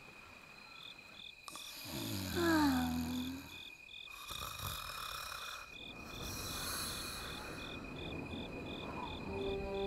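Night-time crickets chirping steadily, about three chirps a second over a constant high trill, as a cartoon ambience. A brief falling tone comes about two seconds in and is the loudest sound, followed by stretches of soft hissing.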